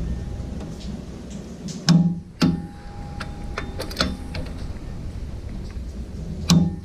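Four sharp metallic clicks from a wrench on the flywheel bolts of a Dodge Ram SRT10's V10 as the bolts are tightened down. A ringing metal tone lingers for over a second after the second click.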